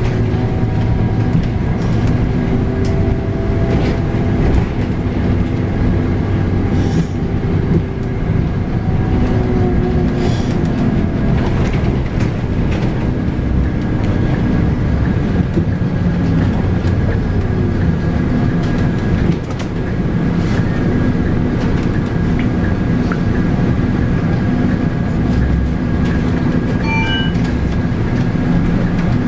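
Scania K310UB bus with its 8.9-litre five-cylinder Scania DC9 diesel and ZF Ecomat automatic running under way: a steady engine drone with road rumble, the pitch easing down a little at the start and again about ten seconds in. A brief high tone sounds near the end.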